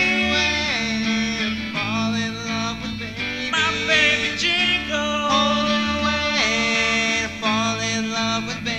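Country-style instrumental music with guitar and other plucked strings, sliding melodic lines over a steady bass.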